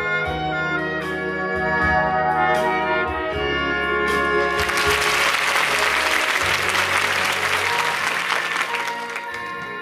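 Brassy orchestral show music with trumpets and trombones playing a tune. About halfway in, loud audience applause breaks out over the music and dies away near the end.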